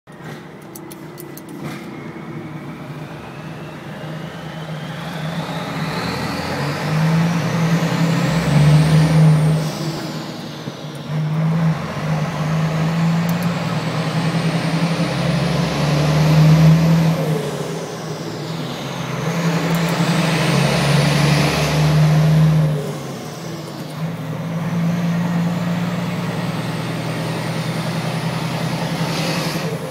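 Truck diesel engine pulling, with its turbocharger whistle climbing in pitch over several seconds as the engine takes load, then dropping back as the throttle eases, about four times over.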